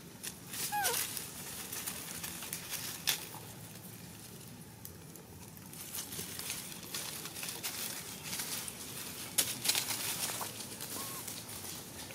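Dry leaf litter rustling and crackling in scattered bursts as small monkeys move over it, with a few short chirps; one falls in pitch about a second in.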